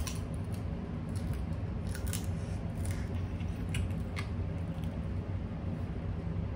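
Crab legs being eaten by hand: a handful of sharp clicks and crackles of shell being broken and picked apart, with wet sucking as meat and sauce are pulled from the shell, most of them in the first four seconds. A steady low hum runs underneath.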